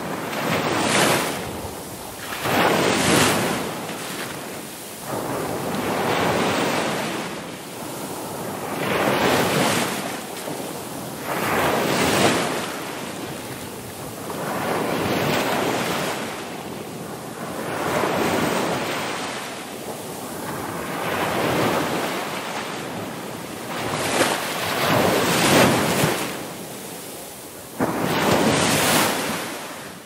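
Ocean surf: waves breaking and washing in, a rushing hiss that swells and ebbs in repeated surges every two to three seconds.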